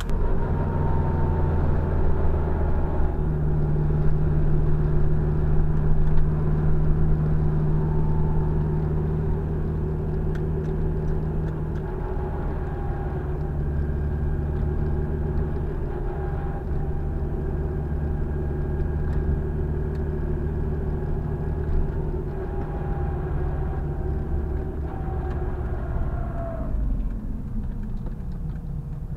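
Car engine and road noise heard from inside the cabin through a dash cam's built-in microphone while driving: a steady low hum with a fainter higher whine, dropping in pitch near the end.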